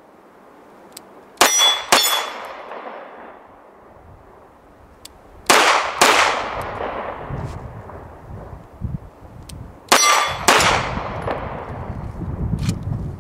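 CZ SP-01 pistol fired in three quick double-taps, each pair of shots about half a second apart, with a metallic clang and ring after some of the shots, typical of hits on steel targets.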